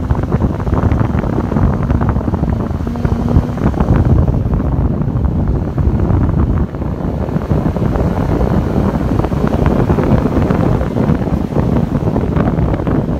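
A Jaguar driving at speed: a steady low rumble of engine and road noise, overlaid with heavy wind buffeting on the microphone.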